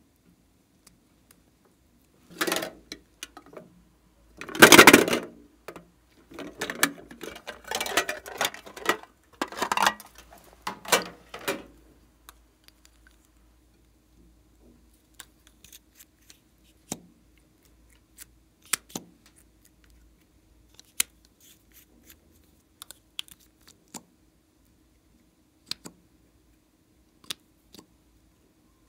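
Plastic lip balm and lipstick containers handled and opened over a glass tray. A loud scrape comes about five seconds in, then a few seconds of crackling scrapes, then scattered light clicks and taps of plastic.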